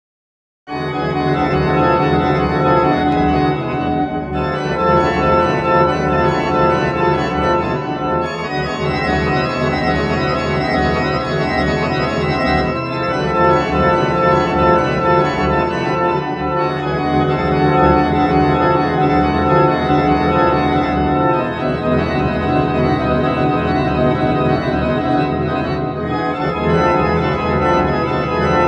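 Music of sustained organ chords that begins about a second in and moves to a new chord every four seconds or so.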